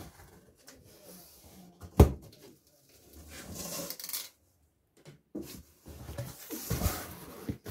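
Hands working the top flaps of a cardboard box: a sharp knock about two seconds in, then stretches of cardboard rustling and scraping.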